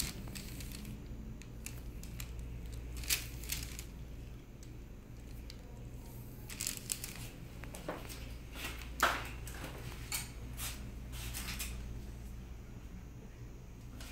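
Scattered short rustles and crinkles of handling, like paper or fabric being moved, over a steady low room hum; the loudest rustle comes about nine seconds in.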